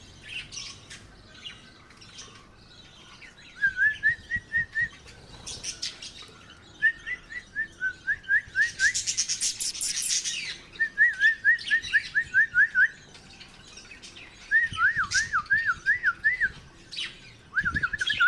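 Lovebirds chirping: about five runs of quick, repeated whistled notes that swoop up and down, with bursts of sharp, high chirps between them, the busiest about halfway through.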